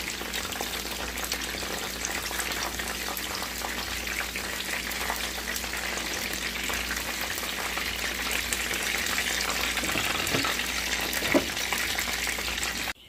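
Batter-coated tempura shrimp deep-frying in hot oil in a pan: a steady, dense crackling sizzle, with a few sharp clicks, the loudest near the end. It cuts off suddenly just before the end.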